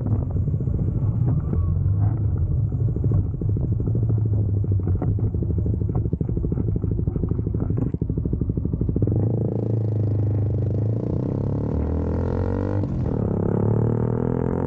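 CFMoto 300SS single-cylinder engine running as the bike slows for a bend, then revving and pulling away from about nine seconds in, its pitch rising steadily.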